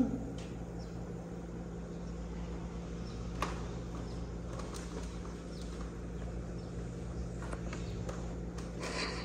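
Quiet room tone with a steady low hum, broken by a single sharp click about three and a half seconds in and a few brief, higher sounds near the end.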